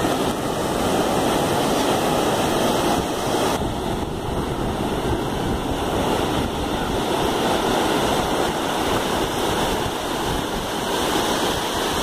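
Ocean surf: waves breaking and washing up the beach in a continuous rushing noise that swells and eases slightly.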